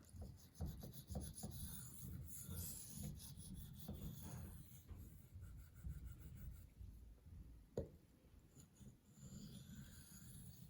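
A knife blade being stroked across a 400-grit Venev diamond sharpening stone: faint repeated scraping strokes, with a sharp knock about eight seconds in.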